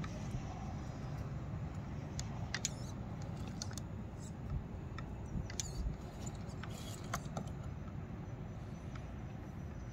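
Traxxas TRX-4 RC crawler inching over dried clay clods: scattered small clicks and crunches over a low steady rumble.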